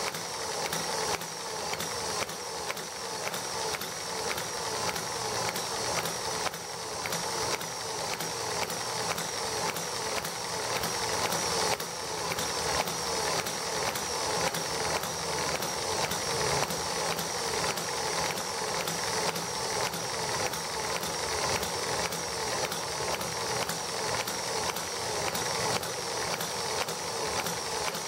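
ET1 miniature model engine running on white gas, keeping up a steady, even mechanical clatter of rapid ticks.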